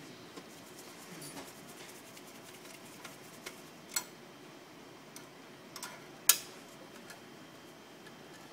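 Scattered small clicks and taps from screws and metal parts being worked with a screwdriver inside a colour copier, with one sharp click about six seconds in.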